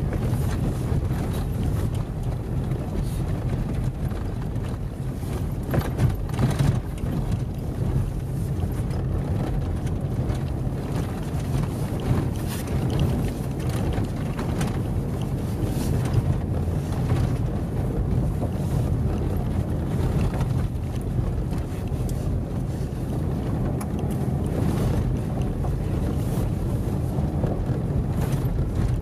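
Inside the cabin of a Toyota driving on a rough gravel road: a steady low rumble of engine and tyres, with occasional knocks and rattles from bumps, the loudest a cluster about six seconds in.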